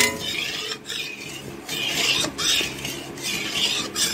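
Metal spatula scraping and stirring around an aluminium kadai of hot oil, in repeated rasping strokes about every half second, after a sharp knock at the start.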